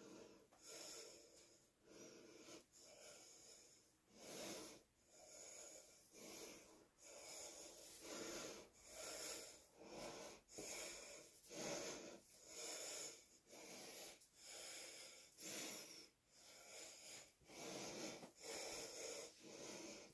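Hands rubbing and tousling freshly dyed, damp hair: a faint, rhythmic swishing, about one and a half strokes a second.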